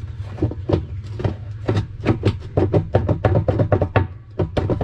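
Rapid, irregular knocking and tapping on the washing machine's parts, several sharp knocks a second, over a steady low hum.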